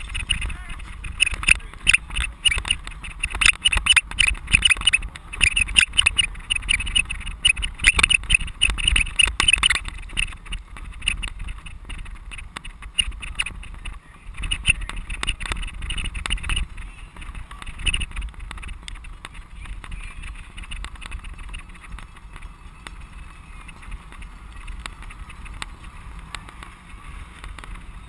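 Bicycle rattling and clattering as it is ridden hard over bumpy grass, with tyre and wind rumble underneath. After about ten seconds the clatter eases into a steadier rush of tyres and wind on smoother dirt, with only a few knocks.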